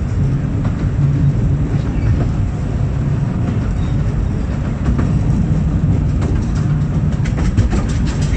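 Miniature-railway train rolling along the 15-inch gauge line, heard from on board as a steady low rumble. From about five seconds in, wheel clicks over the rail joints come more and more often.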